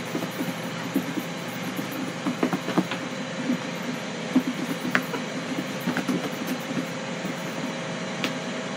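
Catfish pieces being shaken with fish-fry breading in a lidded plastic breader bowl: a steady rustling rattle with many small knocks.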